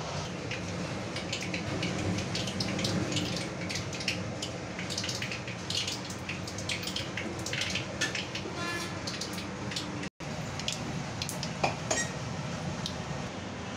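Hot oil in a steel kadhai sizzling, with many scattered crackles and pops, and a few louder knocks near the end.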